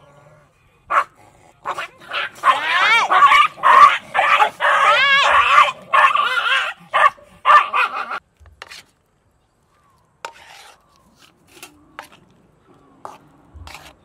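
Dog yapping and whining in a quick run of high, wavering calls, loud from about a second in and stopping after about eight seconds.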